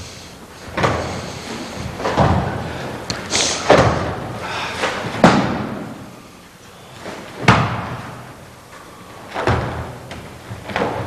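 Bodies landing hard on a mat in a martial arts demonstration: about seven heavy slams, one every one to two seconds.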